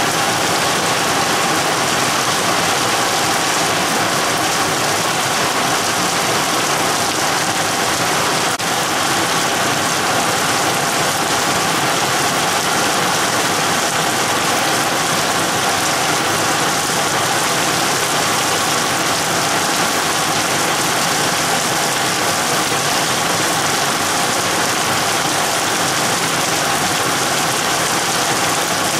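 Heavy rain from a passing storm cell pouring down in a steady, unbroken hiss.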